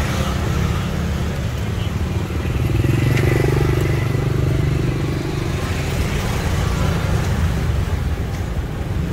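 Street traffic: motor vehicle engines running steadily, swelling louder for a few seconds from about two and a half seconds in as one vehicle passes close.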